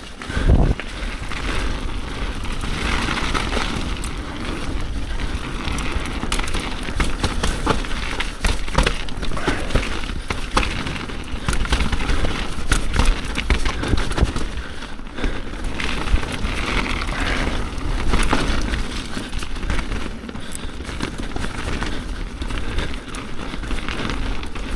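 Mountain bike riding down a wet trail: tyres rolling over dirt and roots, with frequent rattling knocks and clatter from the bike throughout.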